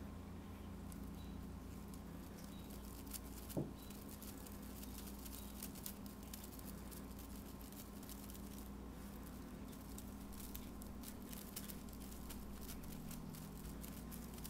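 Faint patter and rustle of a feather wand toy and a cat's paws swatting at it, with scattered light clicks over a steady low hum. One louder knock about three and a half seconds in.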